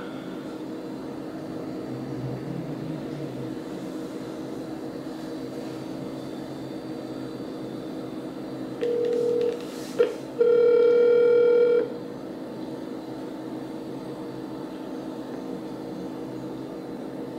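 Smartphone on speaker placing a call: over a faint steady hum, a short call tone sounds about nine seconds in, then a brief blip, then a louder, harsher tone lasting about a second and a half.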